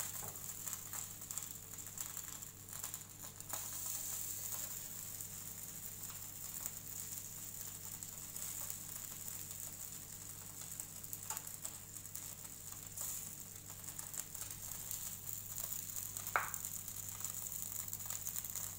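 Butter-basted chicken tikka skewers sizzling and crackling faintly on a stovetop grill, over a steady low hum. A single sharp click about sixteen seconds in.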